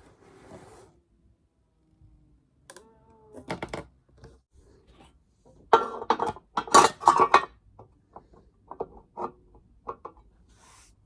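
Metallic clattering and knocking from an Arrow 303U overhead door closer and its door being worked, with a brief pitched scrape about three seconds in, a loud cluster of clatters midway, and several sharp clicks after it.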